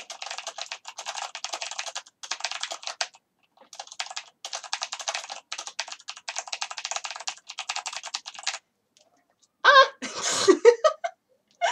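Mechanical keyboard with clicky Cherry MX Blue switches being typed on fast: dense runs of sharp clicks with short pauses. Near the end a loud, excited burst of voice.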